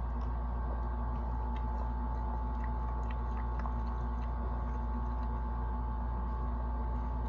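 A steady low hum with faint, scattered soft clicks and mouth sounds; no burp or loud event.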